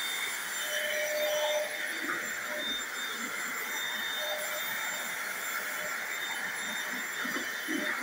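Electric stick vacuum cleaner running steadily, its floor nozzle pushed over a hardwood floor.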